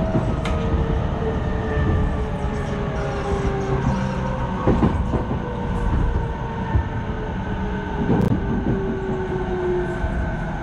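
Electric commuter train heard from inside the car while running and slowing for a station: a steady rumble with a motor whine that falls slowly in pitch. A few sharp clacks come through as the wheels cross rail joints and points.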